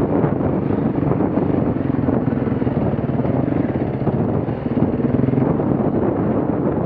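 Trail motorcycle engine running steadily as the bike rides along a rutted dirt track, with wind noise on the microphone.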